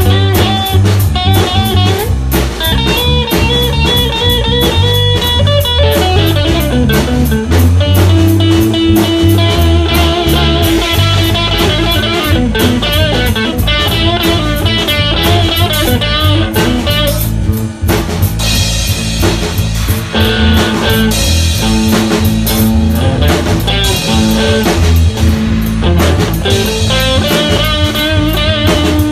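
A band's instrumental jam: guitar lines over a drum kit, played back from a phone voice-memo recording.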